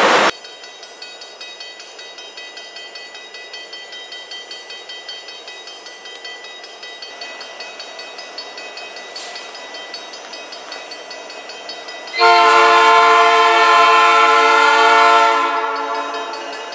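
Nathan P3 air horn on Providence and Worcester SD70M-2 locomotive 4302, sounding one long chord of about three seconds near the end from an approaching freight train, then dying away. Before it, loud rolling train noise cuts off abruptly at the very start, leaving only faint regular ticking.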